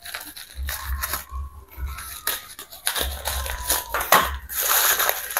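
Plastic shipping bag being cut and torn open by hand, the plastic crinkling and rustling in irregular bursts with dull low thumps of handling.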